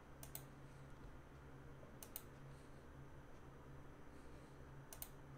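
Faint computer mouse clicks over near-silent room tone: three quick double clicks spread a couple of seconds apart.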